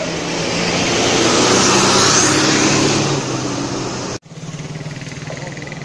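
Intercity coach's diesel engine running as the bus pulls past close by, with tyre noise. The sound grows loudest about two seconds in and then eases. After an abrupt break about four seconds in, a lower, steadier mix of engine and traffic sound follows.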